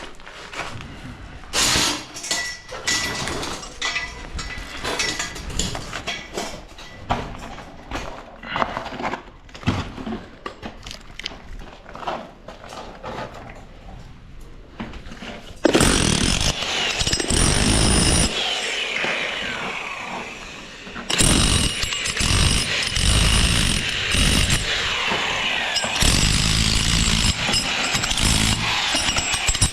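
Construction work: irregular knocks and clatter of hand work, then about halfway through a power tool starts running loudly, stops briefly, and runs again.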